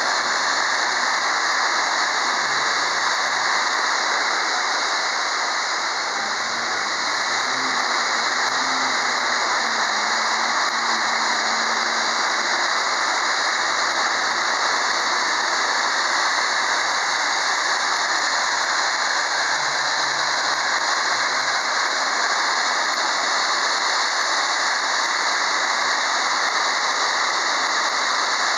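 High-pressure water jet from a Tsurumi HPJ-40BHPC2 high-pressure washer lance blasting a concrete surface, a steady, unbroken spray hiss, cutting away the laitance layer.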